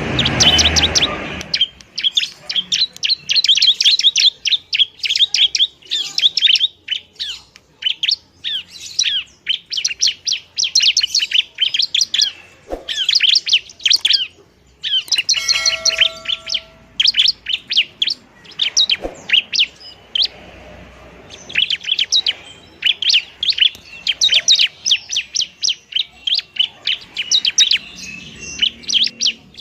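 Bar-winged prinia (ciblek) singing its fast fighting song: rapid runs of sharp, high chirps in long bursts with short pauses. A brief steady tone with overtones cuts in about halfway through.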